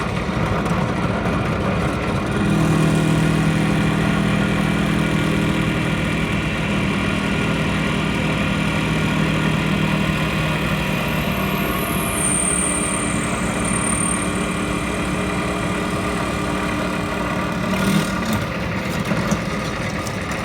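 Electric drill at high speed driving a cobalt and tungsten-carbide multi-purpose drill bit through metal with cutting oil. The drill's steady hum starts about two seconds in and stops near the end, with a brief high whine partway through.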